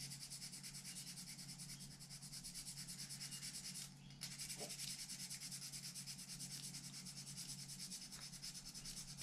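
Small wooden lure blank being hand-sanded with a scrap of sandpaper held in the fingers: faint, quick, even rubbing strokes, with a brief pause about four seconds in.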